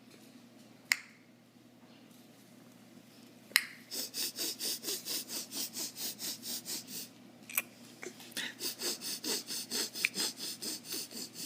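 Mouth noises: a few sharp tongue clicks, then a rapid rhythmic run of breathy hissing puffs, about four a second, that breaks off briefly after the middle and starts again.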